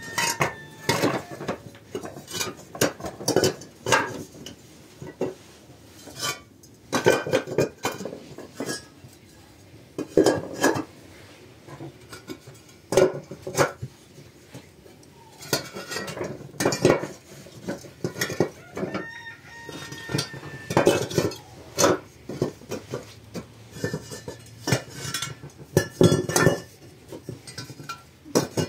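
Hollow clay bricks clinking and knocking against one another as they are lifted from a stack and set down edge to edge in rows, in irregular clusters of sharp clacks.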